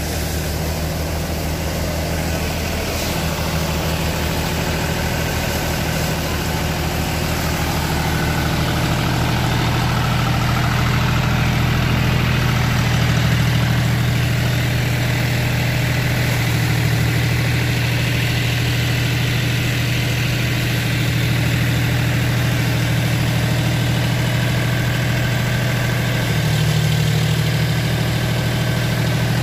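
John Deere 5055E tractor's three-cylinder diesel engine running steadily under load, driving a paddy thresher whose drum and blower add to one continuous mechanical drone. It grows louder over the first ten seconds or so, then holds steady.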